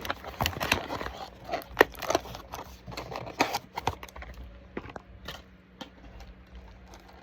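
Irregular clicks, taps and light rustling of packaging and small items being handled, busiest in the first few seconds and thinning out after about four seconds.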